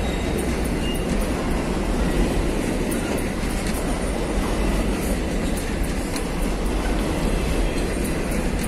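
An empty freight train of grain hopper wagons rolling past close by: a steady rumble and rattle, with frequent sharp clicks and clanks from the wheels and couplings.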